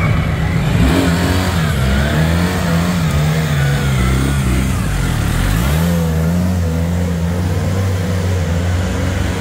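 BMW R 1300 GS's boxer-twin engine revving up and down as the bike is ridden slowly around the arena track. The revs drop and climb again around the middle.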